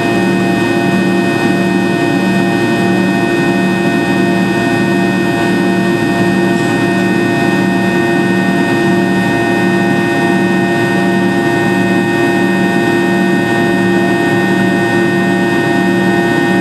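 Cabin noise inside a Fokker 70 in flight: the steady drone and whine of its rear-mounted Rolls-Royce Tay turbofans heard through the fuselage, with a low hum that pulses about once a second.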